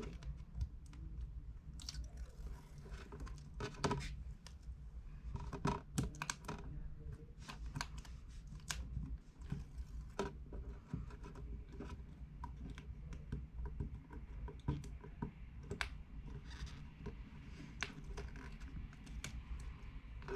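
Scattered light clicks, ticks and crinkling of plastic film as the adhesive backing strips are peeled off a replacement iPad mini 2 touchscreen, over a low steady hum.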